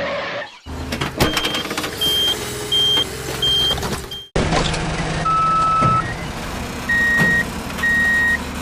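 Truck reversing-alarm beeps over a steady low motor hum: about five quick, even beeps, an abrupt cut about four seconds in, then a longer tone and three slower beeps at a lower pitch.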